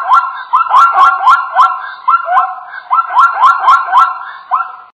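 Zebra calling: a rapid series of barking yelps, about three a second, each dropping in pitch, ending abruptly near the end.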